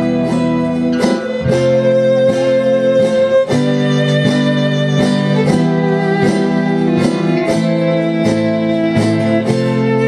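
Acoustic band playing an instrumental passage: strummed acoustic guitar keeping a steady rhythm of about two strokes a second, a bowed fiddle holding long notes over it, and an autoharp.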